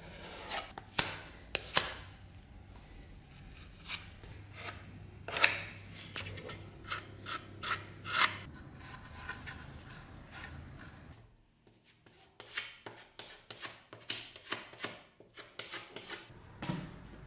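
Metal putty knife scraping and spreading wood putty over bare wood, in short, irregular strokes with sharp scrapes and clicks.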